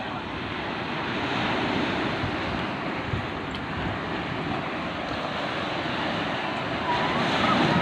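Sea surf washing onto a beach, a steady rushing of waves, with wind buffeting the microphone.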